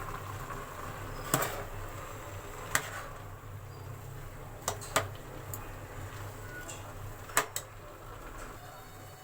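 Metal spoon knocking and scraping against a cooking pot while the carrot halwa is stirred: about six sharp clinks at uneven intervals, over a steady low hum.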